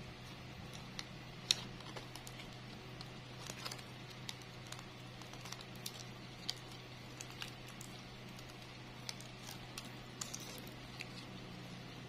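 Faint, irregular crinkles and small clicks of a thin plastic-bag strip being wrapped around a flower stem, over a low steady hum.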